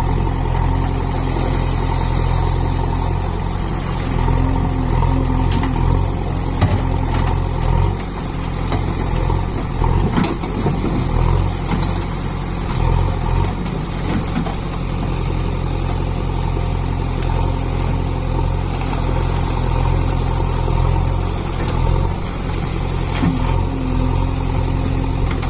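JCB 3DX backhoe loader's diesel engine running steadily while its hydraulic backhoe arm digs wet sand and water.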